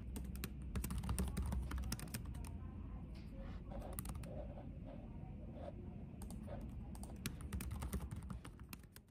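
Fingers typing on a laptop keyboard: quick runs of key clicks, thinning out in the middle and picking up again near the end.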